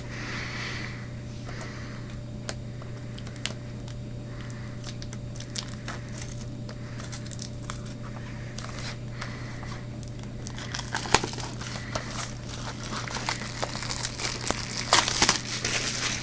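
Plastic shrink-wrap being torn and peeled off a DVD box set, crinkling and crackling with scattered sharp clicks that come thicker and louder over the last five seconds.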